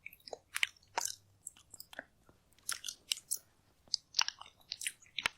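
A person chewing and biting food noisily, a quick irregular string of crisp crunches and wet mouth clicks, mukbang-style eating sounds.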